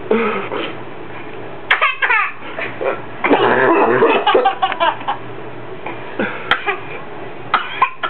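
A toddler laughing in several bouts, mixed with short coughs.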